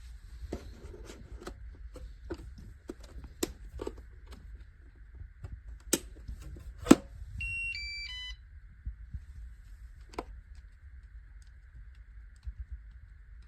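Lefant M210 Pro robot vacuum playing a short electronic chime, a quick run of beep tones stepping up and down in pitch, about seven seconds in. Before it come scattered sharp clicks and knocks, the loudest a single knock just before the chime, over a faint steady hiss.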